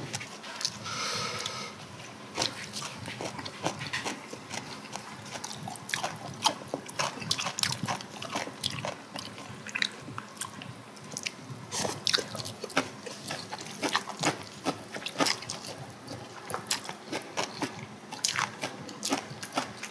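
Close-miked eating: wet slurps and chewing of sauced buckwheat noodles, with many small clicks and smacks.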